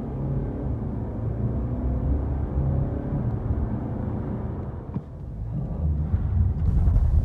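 Mercedes-Benz C220d's four-cylinder diesel engine heard from inside the cabin under hard acceleration, its pitch rising slowly as the car pulls from about 55 to 100 km/h. About five seconds in the sound drops away briefly, then the engine picks up again, louder, for a new run from standstill.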